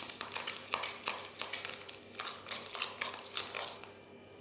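Utensil clicking against a container while stirring a slime mixture until it is evenly blended: quick, irregular clicks that thin out and fade toward the end.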